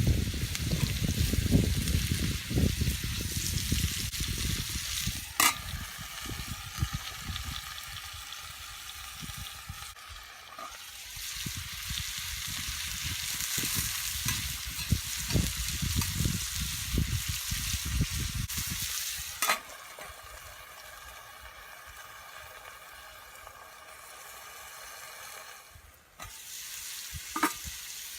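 Goya champuru (bitter-melon stir-fry) sizzling in a pan over a campfire. Stirring knocks and scrapes run through the first two-thirds, then the sizzle goes on alone, with a few sharp clicks.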